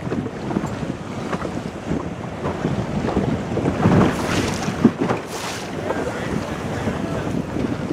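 Wind buffeting the microphone over the wash of choppy water around a moving boat, with louder gusts about four and five seconds in.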